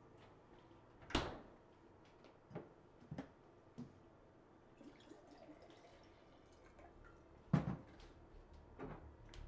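Quiet kitchen handling sounds: two clunks, one about a second in and a louder one near the end, with a few lighter knocks between. Water is faintly poured from a jug into a glass in the middle.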